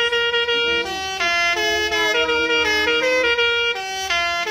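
A truck's telolet basuri musical air horn playing a tune: reedy, sax-like horn notes sounding together in two or three voices and changing pitch about every half second, over a low hum.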